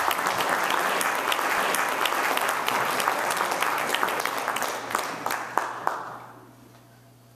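Audience applauding, dying away about six seconds in and leaving a low steady hum.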